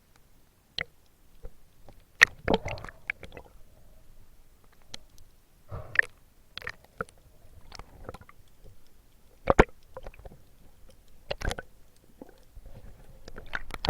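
Irregular muffled knocks and clicks, a dozen or so at uneven spacing, over a faint low rumble with some gurgling water.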